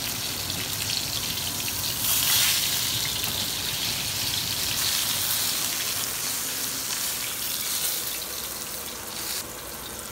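Whole fish frying in hot oil in a frying pan, a steady sizzle that gets louder about two seconds in and drops down near the end.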